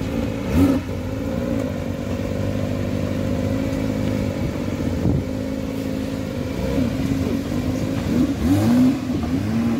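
Porsche 911 Speedster's naturally aspirated 4.0-litre flat-six idling at a crawl, with short throttle blips, the loudest about half a second in and near the end.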